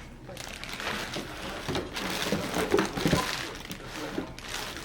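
Packaging rustling and crinkling, with light knocks of plastic parts being handled, the loudest about two to three seconds in.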